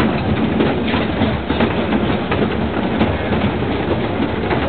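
Engine of a small motorised carrier running steadily as it travels, with a rattling metal clatter and a couple of sharp clacks.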